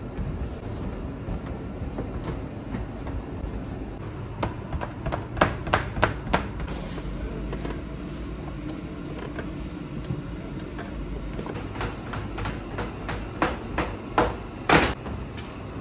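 Sharp knocks and taps of dough work on a stainless steel table, in two short clusters with the loudest near the end, over a steady background hum.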